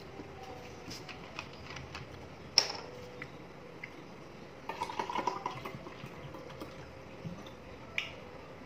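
Small handling sounds at a table as a plastic drinks bottle is picked up and held: a single sharp knock about two and a half seconds in, a short run of crackling clicks around five seconds, and another click near the end.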